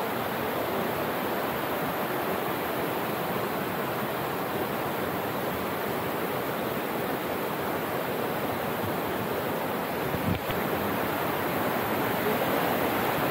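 Steady rush of a rocky mountain stream and small waterfall cascading over boulders. A single brief knock about ten seconds in.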